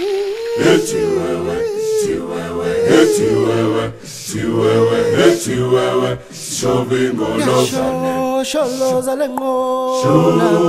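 Background music: unaccompanied group singing, several voices in harmony, with short breaths between phrases.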